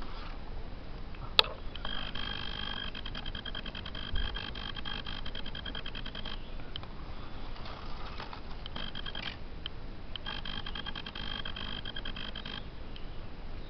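A sharp click about a second and a half in, then a calling animal's rapid buzzing trill. The trill comes in two stretches of a few seconds each, with a short burst between them.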